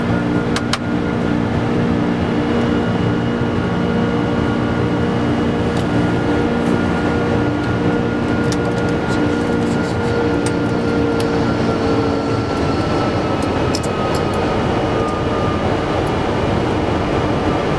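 Steady rushing flight-deck noise of a Boeing 747-400 in flight, with several steady hums and a higher tone that slowly falls in pitch, most of them fading about two-thirds of the way through. A few faint clicks over it.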